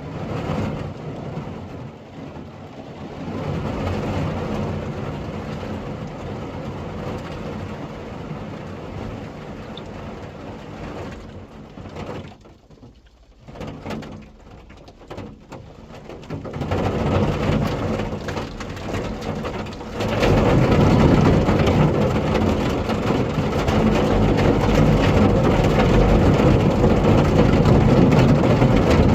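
Rain drumming on the body of a Toyota Tercel wagon, heard from inside the cabin before any sound deadener is fitted: a steady noise that drops low for a few seconds near the middle and comes back louder for the last third.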